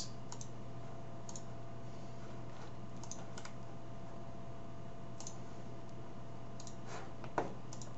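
A handful of light, scattered clicks from computer input at a desk, about nine in eight seconds, the loudest one about seven and a half seconds in. Under them is a steady low electrical hum with a faint steady tone.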